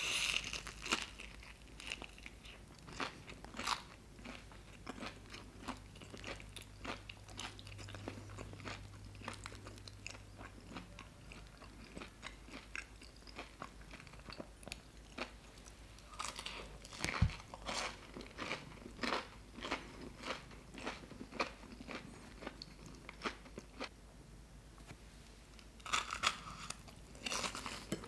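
Crunching and chewing of a fried, breadcrumb-coated mozzarella cheese corn dog: crisp crust crackling in many quick irregular clicks, thickest about two-thirds of the way through and again near the end.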